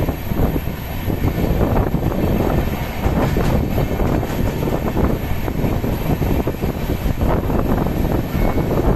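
Magadh Superfast Express passenger coach running at speed, wheels rumbling and clattering on the rails, heard from the coach's open doorway.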